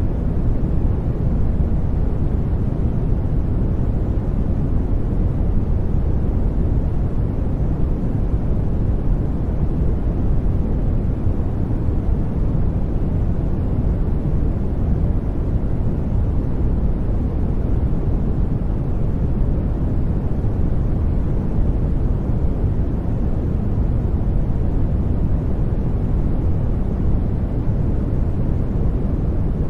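Brown noise: a steady, deep rumbling hiss, strongest in the lows and fading toward the highs, unchanging throughout.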